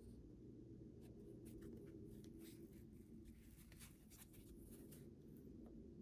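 Faint handling sounds: light scratching and ticking as a resin keycap is worked out of its foam insert by gloved fingers, over a steady low hum of room noise.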